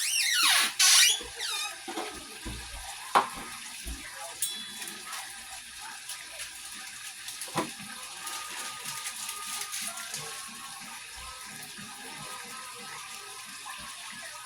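Water running from a kitchen tap into a sink, with a loud rush in the first second and a few sharp knocks of kitchenware.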